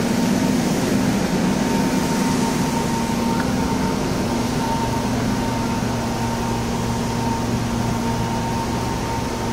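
Steady hum inside a KRL electric commuter train car, from its air conditioning and electrical equipment, with a faint steady high tone over it. A lower hum joins about four and a half seconds in.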